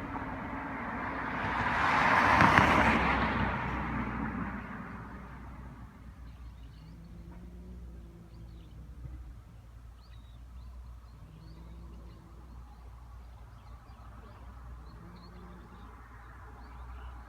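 A vehicle passing by, swelling to its loudest about two and a half seconds in and fading away over the next few seconds. After it comes a quiet steady rumble, with faint short high chirps and a faint low hum that comes and goes.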